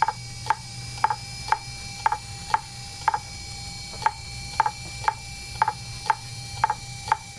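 Regular ticking, about two sharp clicks a second, over a steady low hum and a faint steady whine.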